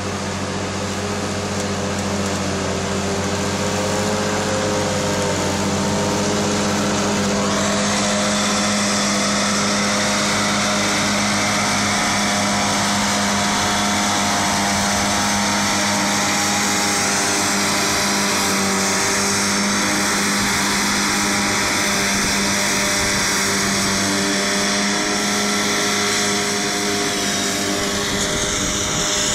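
Tractor engine running under steady load while a rear-mounted Pre-Chop straw chopper shreds stubble and sprays the chopped straw out, a steady machine hum with a rushing hiss on top. The hiss gets stronger about seven seconds in.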